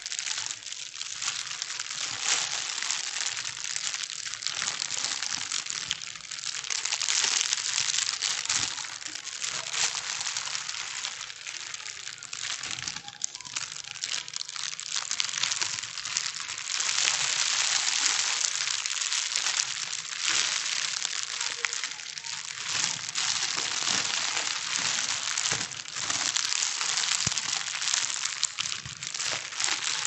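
Thin plastic bags being crumpled and rustled continuously: a dense crinkling crackle that swells and eases every few seconds.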